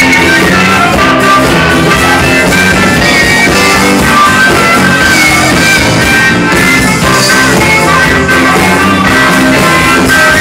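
Live blues-rock band playing an instrumental passage: electric guitars over bass and a drum kit, loud and steady, with no singing.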